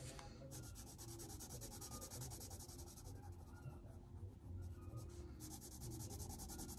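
Faint scratching of a graphite pencil shading on paper in fast, even back-and-forth strokes. The strokes pause for about a second roughly two-thirds of the way through, then resume.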